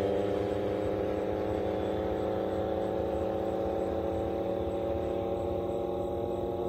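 An engine running at a steady speed: a steady droning hum whose pitch drifts only slightly, with a low rumble under it.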